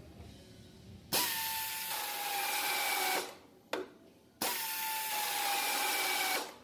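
CNC plasma table's spindle (drill tool) spinning a coarse 2-inch Scotch-Brite Roloc disc against sheet steel for engine turning. It grinds twice for about two seconds each, about a second in and again near the end, each time with a steady motor whine. A short knock falls between the two.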